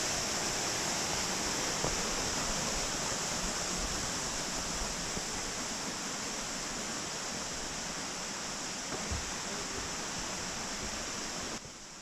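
Steady rush of a mountain stream and waterfalls, a constant even hiss that drops away abruptly near the end.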